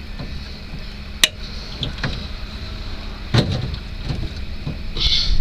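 Sharp metal clicks and clanks of locking pliers working an easy-out screw extractor to turn a rusted, broken-off stud out of its hole. One sharp click comes about a second in and a louder clank just past three seconds, over a steady low hum.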